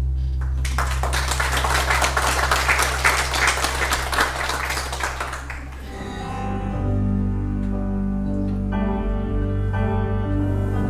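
Congregation clapping for about five seconds over a held low instrumental tone. As the applause dies away, instrumental music with sustained notes starts.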